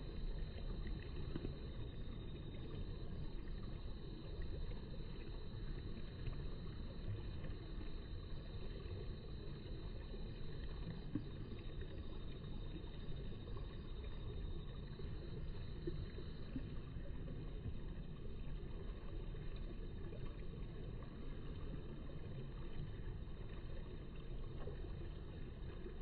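Steady low outdoor background rumble with no distinct events and no bird calls.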